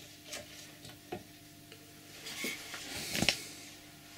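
A few faint, scattered knocks and clicks of things being handled on a workbench, the loudest about three seconds in.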